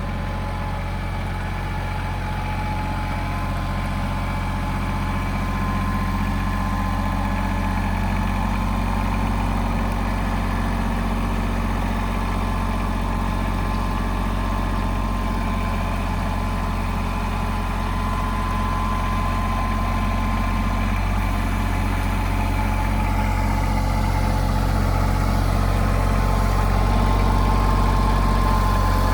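Tractor engine running steadily at a low, even speed, growing gradually a little louder.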